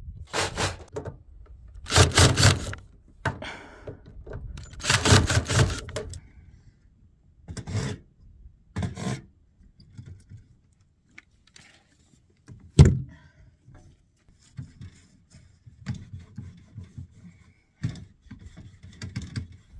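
RV aluminium screen door being handled and worked on: loose panels rattling and scraping in several short bursts, with one sharp thunk about 13 seconds in.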